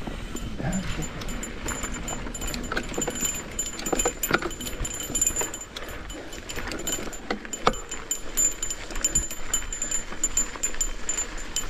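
Cannondale Scalpel full-suspension mountain bike descending rough singletrack: chain and components rattling and clicking over the bumps, with tyres rolling on dirt and a few sharp knocks from hard hits, the sharpest about four and eight seconds in.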